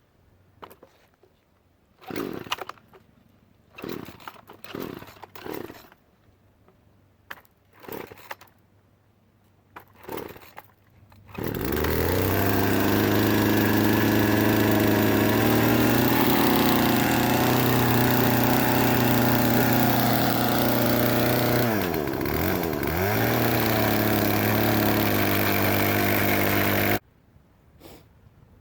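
Chainsaw: several brief bursts over the first ten seconds, then the engine catches about eleven seconds in and runs steadily at high speed. Its pitch dips and recovers briefly around twenty-two seconds, and it cuts off abruptly near the end.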